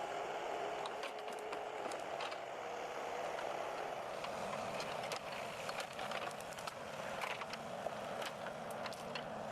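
A timber forwarder's engine running steadily, with scattered clicks and crackles from the machine moving through the forest.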